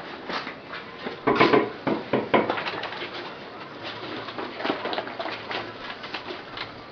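Irregular knocks and scrapes of a wooden stool and a plastic washbasin being handled on a paved yard, loudest between about one and two and a half seconds in, with doves cooing.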